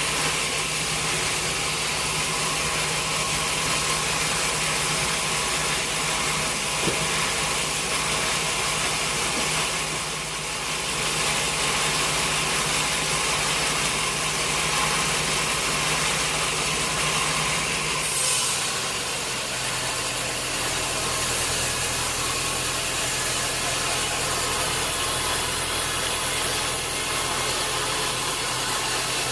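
Sawmill machinery running steadily with an engine-like hum. About two-thirds of the way through, a brief sharper sound comes and the hum shifts to a lower pitch.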